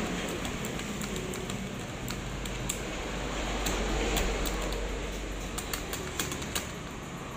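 Small metal clicks and ticks, irregular and many, from the mechanism of a YS Star sewing-machine buttonhole attachment being worked by hand, over a steady background hum.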